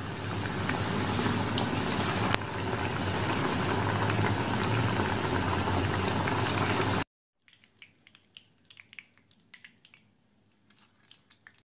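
Hot oil deep-frying a breadcrumb-coated tuna cutlet: a steady sizzling hiss with a few small pops. About seven seconds in it cuts off abruptly to near silence, with only a few faint ticks.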